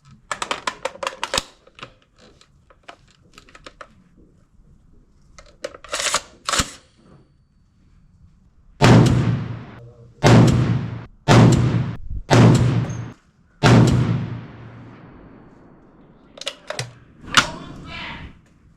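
Barrett M107A1 .50 BMG semi-automatic rifle fired five times in quick succession, about a second apart, each shot ringing out briefly. Before the shots there are rattling metallic clicks and two sharp clacks, and more clicks come near the end.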